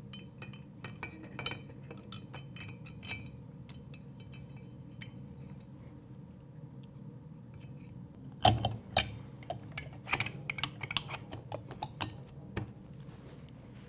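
Light metallic clinks and taps as a Honda CRF450X cylinder is lowered over the piston and cylinder studs. From about eight and a half seconds in comes a louder run of knocks and clinks as the cylinder is pushed down onto the engine.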